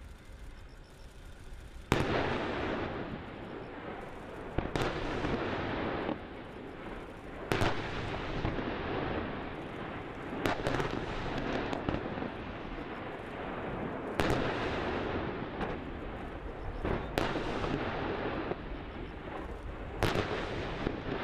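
Heavy weapons fire and shell explosions on a live-fire range: about seven sharp blasts, roughly one every three seconds, each followed by a long rolling rumble.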